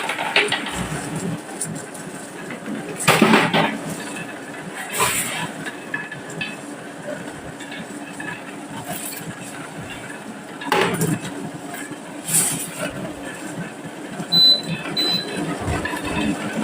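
Marbles rolling along a wooden marble-run track with a steady rumble, and several sharp clacks as they strike the wood. Two short high beeps sound near the end.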